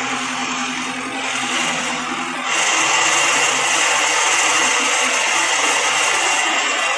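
Mahindra Arjun 605 DI tractor's diesel engine running with a backhoe loader attached. It grows louder and harsher about two and a half seconds in, then eases slightly near the end.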